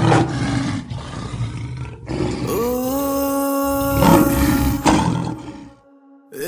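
Cinematic title sound design: a loud roar with sharp hits, then layered tones that swell upward about two and a half seconds in and are held. The sound falls away briefly near the end before a new rising tone comes in.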